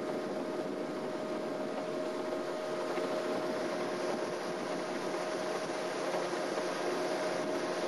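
Steady mechanical hum with a constant mid-pitched tone over an even noise.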